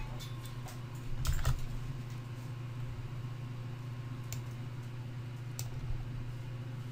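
Computer keyboard being typed on: a short run of keystrokes in the first second and a half, then single key clicks about four and five and a half seconds in, over a steady low hum.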